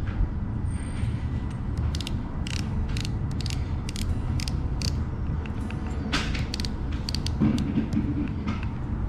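Scattered small clicks and creaks of a Shimano Conquest 30 HG baitcasting reel being handled and fitted back together by hand, over a steady low hum.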